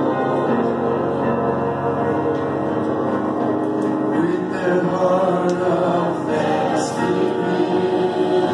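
A congregation singing a slow worship song together, many voices blended on long held notes.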